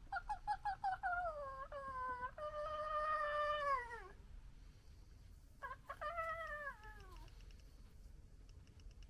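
An animal's drawn-out call: a quick run of short notes runs into a long held note that slides down in pitch, followed about two seconds later by a second, shorter call that also falls.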